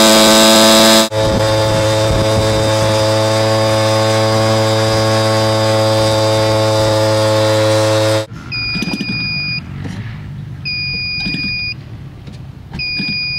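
CRRC GF50i 50cc gas engine running steadily at high power on a test stand during its first run, with an abrupt jump in its sound about a second in. After about eight seconds the engine stops being heard and a high electronic beep sounds about once every two seconds, each lasting about a second.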